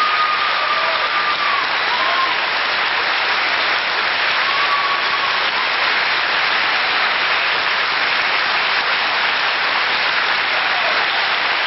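Concert audience applauding steadily after a choral performance, heard through the dull, top-cut sound of an old VHS tape recording.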